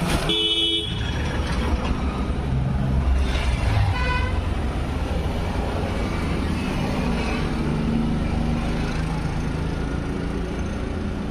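Steady low rumble of vehicle engines, with a short horn toot right at the start and another about four seconds in.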